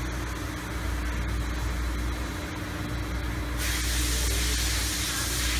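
A steady low machine hum, joined about three and a half seconds in by a sudden, steady hiss that keeps going.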